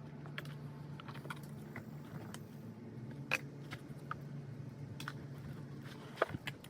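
Irregular light clicks and taps of small hard objects being handled, with a louder tap about a third of the way in and two more near the end, over a steady low hum.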